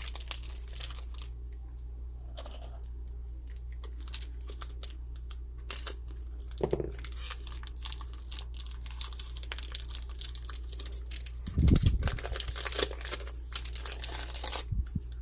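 Pokémon trading-card booster pack's foil wrapper being torn open and crinkled, with many irregular crackles as the pack and cards are handled. A steady low hum runs underneath, and there is a dull thump about twelve seconds in.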